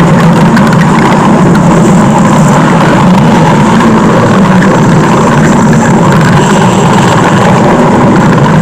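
Cartoon stomach-growl sound effect: a loud, continuous low rumble that holds steady without pauses.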